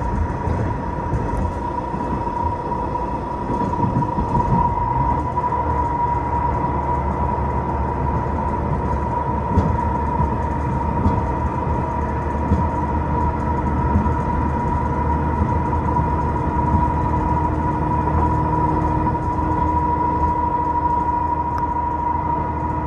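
A diesel railcar running at speed on the Ōminato Line, heard from inside the carriage: a steady low rumble of wheels on rail, an even high whine held throughout, and a click now and then.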